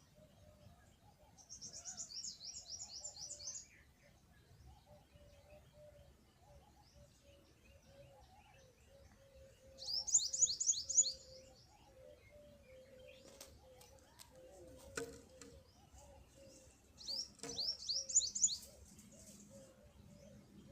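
A small songbird singing three short, high-pitched rapid trills of quick falling notes, spaced several seconds apart.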